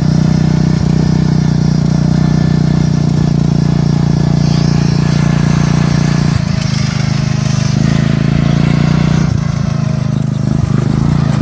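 Off-road lawn-tractor mud mower's small engine running steadily at high throttle with a loud exhaust as it is driven, dipping briefly about six and nine seconds in.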